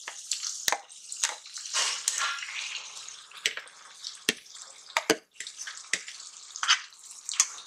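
Hot oil sizzling in a steel kadhai as mashed roasted brinjal is scraped into it. Sharp clicks of a spoon against the plate and the pan come about eight times.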